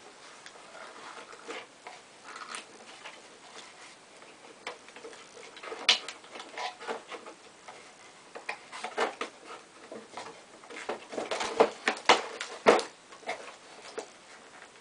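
Hands rummaging in a small cardboard box: irregular taps, scrapes and rustles of cardboard and packing, with louder knocks about six seconds in and a cluster of them between about eleven and thirteen seconds in.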